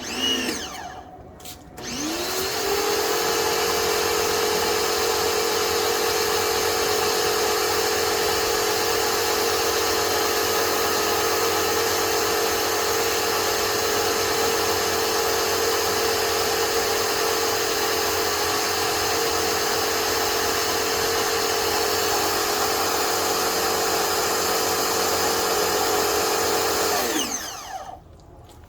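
Craftsman pressure washer's motor briefly spins up and stops, then starts again about two seconds in and runs at a steady pitch with the hiss of spraying water, winding down near the end. It is spraying through a foam cannon.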